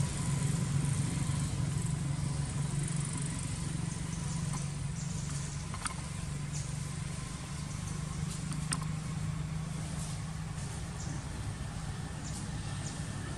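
A steady low engine hum that doesn't change, with a few faint clicks partway through.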